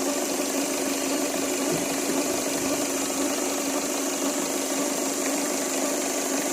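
Ford Figo 1.4-litre TDCi four-cylinder diesel engine idling steadily. The engine has a knocking complaint and loses pickup.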